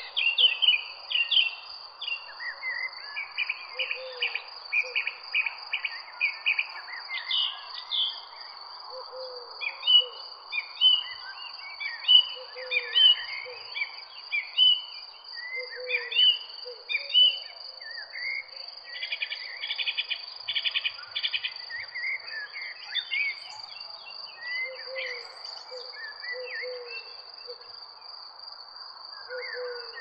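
Mixed birdsong, many chirping and trilling songbird calls, with short low calls recurring every second or two. Under it runs a steady high insect trill and a soft even hiss.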